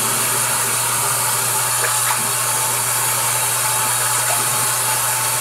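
Bathroom sink tap running hard into the basin: a steady, loud rush of water.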